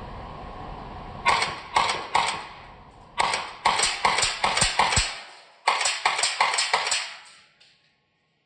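APS X1 gas blowback airsoft rifle firing, each shot a sharp crack with the blowback cycling. Three single shots come first, then two quick strings of about six or seven shots at roughly four a second, and a faint click near the end.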